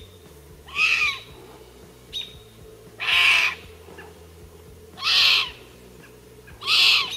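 Lynx kitten calling: four short, high mewing calls about two seconds apart, each bending up and then down in pitch.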